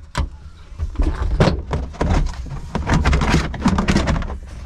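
Knocks, clicks and rattles of hands working inside a Chrysler PT Cruiser's tailgate, its trim and latch parts being handled, over a low steady hum.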